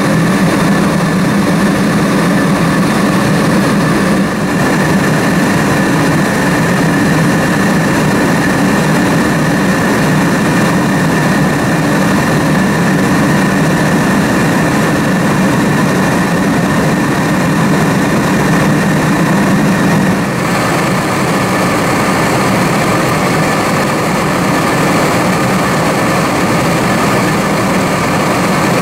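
Steady cabin noise of a jet airliner in cruise, heard from inside the cabin: the engine and the air rushing past the fuselage make an even rushing sound over a low hum. The sound shifts slightly about 4 and 20 seconds in.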